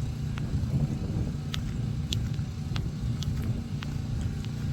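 A steady low rumble with a few light, scattered clicks.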